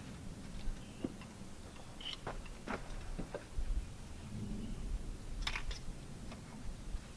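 Split firewood knocking and clunking as pieces are set by hand onto a stacked woodpile: irregular wooden knocks every half second to second, with a louder pair about five and a half seconds in.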